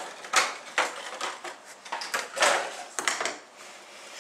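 Small plastic toy figures being handled close to the microphone: a series of irregular clicks and taps, with a short rustle about two and a half seconds in.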